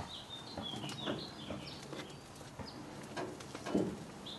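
Small birds chirping in quick high notes, with a few light metallic clinks and one louder knock near the end as a foil pan is slid off a smoker's wire rack.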